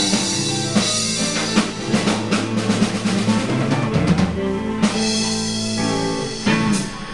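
Rock band playing live: electric guitars, bass guitar, keyboard and a drum kit, with heavy drumming as the song comes to its end. A last loud hit comes near the end and the sound then dies away.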